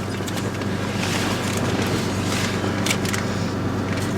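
Steady drone of a bus's engine and road noise heard from inside the bus, with a few faint clicks and rattles about two and a half and three seconds in.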